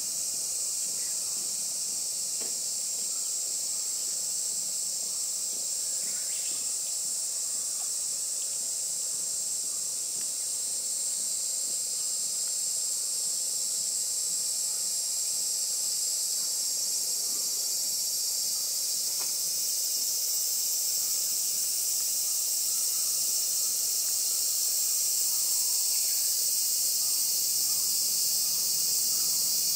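Steady, high-pitched insect chorus, growing slightly louder toward the end.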